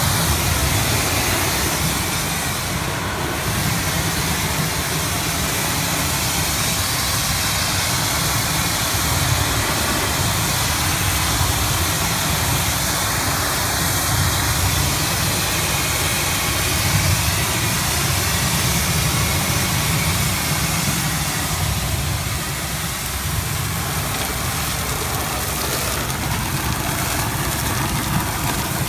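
Shotcrete equipment running steadily: a constant heavy engine drone with an even hiss over it.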